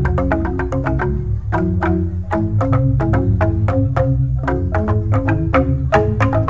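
Balinese jegog ensemble of bamboo-tube xylophones struck with mallets, playing a tabuh petegak instrumental piece: fast interlocking strokes, several a second, over a strong low bass. The texture thins briefly about a second and a half in, then fills out again.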